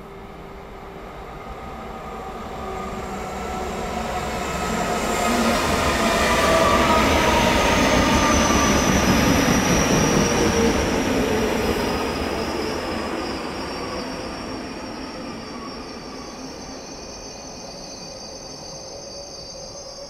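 A ZSSK class 671 double-deck electric multiple unit passing through a station. Its running noise and a whining tone swell as it approaches and are loudest about six to eleven seconds in. They then fade as it pulls away, the whine sliding down in pitch.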